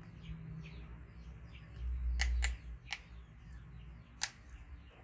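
Sharp clicks of a small clay teapot and its lid knocking together as a monkey handles it: two close together about two seconds in, one near three seconds and one about four seconds in. Under them are a short low rumble about two seconds in and faint bird chirps.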